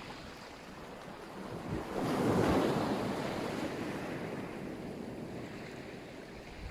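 Black Sea surf: a wave breaks about two seconds in and washes out slowly, over a steady hiss of smaller surf.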